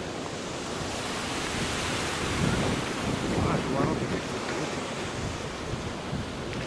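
Wind rushing over the microphone together with the wash of the sea, swelling for a couple of seconds in the middle.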